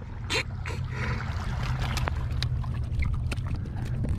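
Sea washing against the rocks with a steady low rumble, and a few light clicks and taps as a fishing hook is worked free of a fish's lip.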